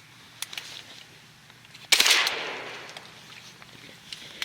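A shotgun shot about two seconds in, a single sharp blast whose report dies away over about a second.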